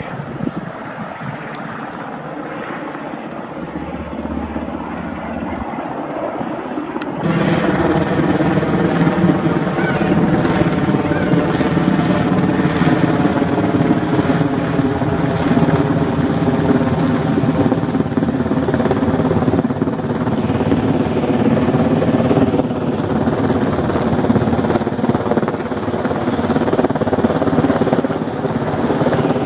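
Sikorsky UH-60 Black Hawk helicopter flying with a slung load on a long line, its rotor and engine noise growing louder. It jumps much louder about seven seconds in and stays loud and steady with the helicopter close overhead.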